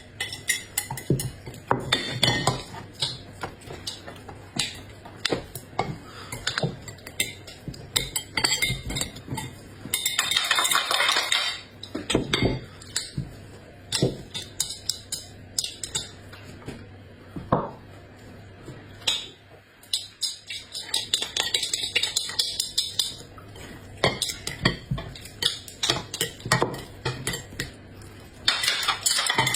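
Kitchen utensils knocking and clinking against dishes and pans in an irregular run of sharp clicks, with a couple of scraping or stirring stretches lasting a second or two.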